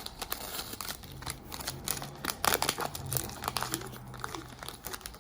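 Trading card pack wrapper being torn open and crinkled by hand: irregular crackling with a louder burst of tearing and crinkling about halfway through.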